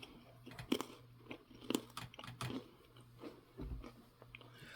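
A person chewing a cracker close to the microphone: faint, irregular crunches and mouth clicks about once or twice a second.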